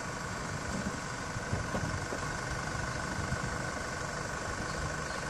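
Engines of two pickup trucks, a Volkswagen Amarok and a Chevrolet S10, running steadily at low revs while hitched together by a tow strap, just before a tug-of-war pull begins.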